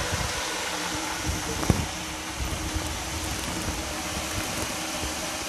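Gas stove burner running steadily under a covered aluminium pot, a continuous rushing noise, with a single light knock about a second and a half in.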